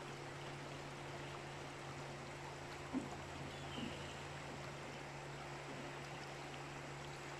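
River water rushing steadily, with a faint, steady low hum underneath.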